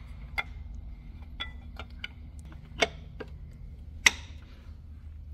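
Scattered light metal clicks and clinks as a camshaft timing tool is fitted to the cams of a Mercedes-AMG M156 V8 and the cams are turned until the tool seats. One sharper clack comes about four seconds in.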